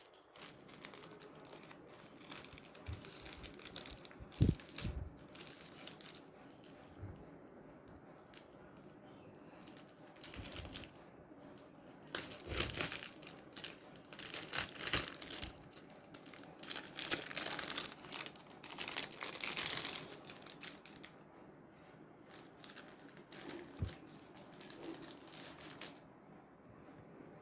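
Packaging being handled and opened, crinkling and tearing in irregular bursts that are busiest in the middle of the stretch, with a single soft knock a few seconds in.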